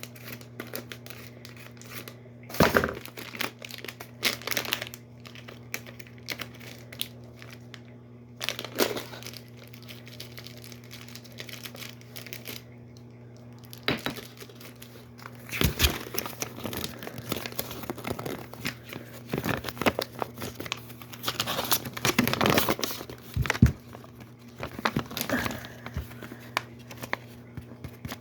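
Crinkly plastic blind-bag packaging being handled, torn open and crumpled by hand, in irregular crackling bursts that grow busier about halfway through.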